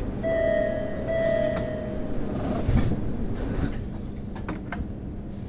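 Inside an MBTA Orange Line Hawker Siddeley 01200-series subway car: a steady high tone sounds in two spells over the car's rumble, then a heavy thud about halfway through, followed by a run of sharp clicks.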